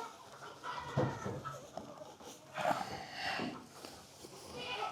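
Goats bleating among the barnyard livestock, with the rustle and scrape of loose hay being swept up.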